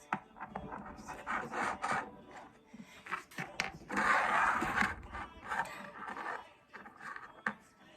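Rubbing and scraping with scattered light knocks and clicks, loudest in a rough scrape about four seconds in.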